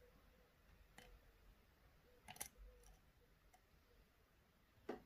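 Faint, scattered clicks of a lock pick working the pins of an Assa D12 version 2 cylinder under tension, a handful of them spread over a few seconds with the strongest near the end.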